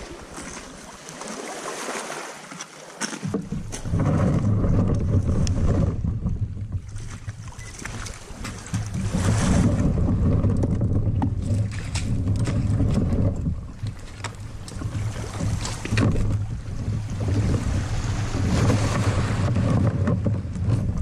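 Surf washing over a cobble beach and around a plastic sit-on-top kayak, with scattered sharp knocks. From about three seconds in, heavy wind rumble on the microphone swells and eases over the water sound.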